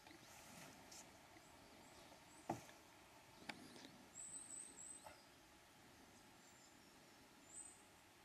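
Near silence, broken by a sharp click about two and a half seconds in and a smaller one a second later, and by a few brief high bird chirps around four seconds in and again near the end.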